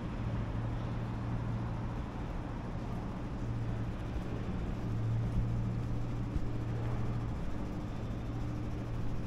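City street ambience: a steady low mechanical hum over a background hiss, the lowest part of the hum easing off about seven seconds in.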